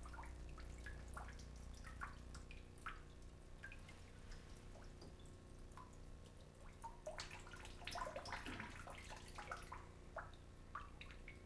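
Faint, irregular drips of water and small ticks, thicker in the second half, as water is let out of the burette of a water-jacket hydrostatic test rig to bring its level down to zero. A steady low hum runs underneath.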